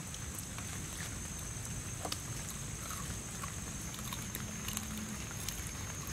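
Chewing and crunching on cooked baby crocodile, a few sharp crunches scattered through it, over a steady high insect drone and a steady low rumble.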